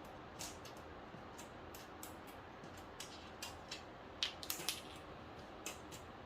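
Scattered light clicks and taps of small parts being handled, with a quick cluster of sharper clicks about four and a half seconds in, over faint room hiss.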